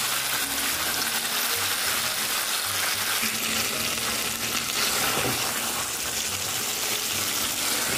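Chicken pieces in masala sizzling steadily in a non-stick frying pan over a low flame, stirred and turned with a spatula as they are browned (bhuna).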